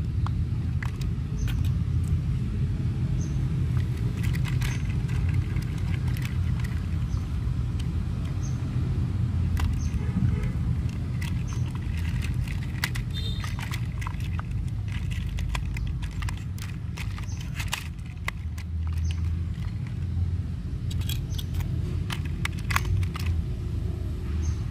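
Small plastic clicks and taps from handling a toy RC rock crawler, opening its battery compartment and plugging in its battery, over a steady low rumble.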